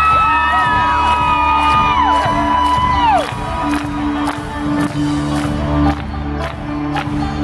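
Live folk-rock band playing loudly, with steady drum hits, banjo and a sustained bass note. Crowd whoops are held and trail off over the first three seconds.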